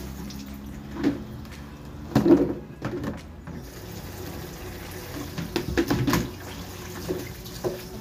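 A kitchen tap runs steadily into the sink while chilies are rinsed. Clatters and knocks of a plastic colander and basin being handled come about a second in, loudest just after two seconds, and again around six seconds.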